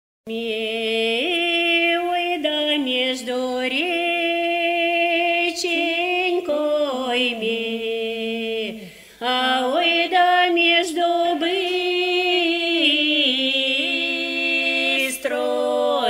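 Unaccompanied voices singing a slow, drawn-out North Russian folk song in the Pinega tradition. Long held notes slide from pitch to pitch, with a brief breath break about nine seconds in.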